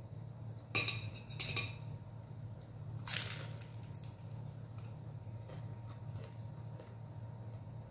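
Eating at a table: a few light clinks of a fork and spoon on a plate about a second in, then one crisp crunch of a bite into a fried lumpia spring roll about three seconds in. A low steady hum sits underneath.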